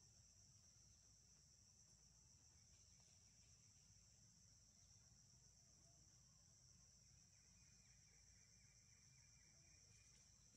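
Near silence with a faint, steady, high-pitched insect chorus.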